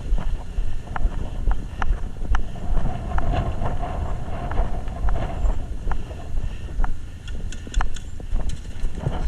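Wind buffeting the microphone of a body-worn camera as a low, uneven rumble, with scattered sharp cracks of airsoft guns firing.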